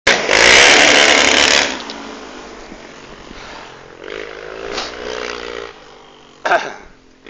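A vehicle engine revving hard as it slides sideways across a dirt track, loud and close for the first second and a half, then fading. It revs up again, further off, from about four to five and a half seconds in, and a short sharp burst comes near the end.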